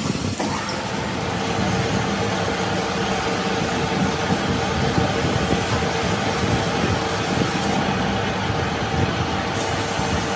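Metal lathe starting up and running steadily, turning down the end of a transmission shaft with a cutting tool; a steady hum comes in about half a second in and holds.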